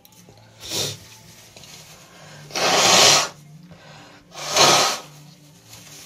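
A woman sneezing twice with a head cold, two loud sneezes about a second and a half apart, the first about three seconds in and the second near five. A shorter, quieter burst comes about a second in, before them.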